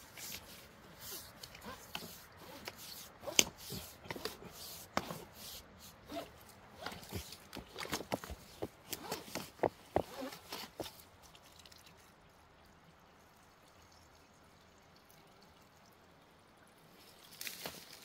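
Water dripping and trickling from a black plastic spring-water hose, mixed with small scattered knocks and scrapes as the hose is handled among rocks; these sounds die away about eleven seconds in. The hose is running weakly, which the owner suspects is a frog or similar creature blocking it at the spring.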